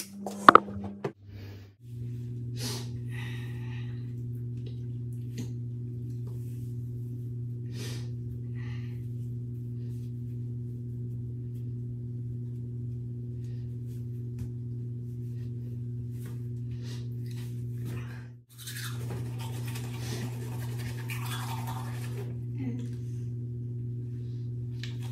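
Steady low electric hum of a small motor, starting about two seconds in and dropping out for a moment about three quarters of the way through, with faint knocks and rustles of handling over it.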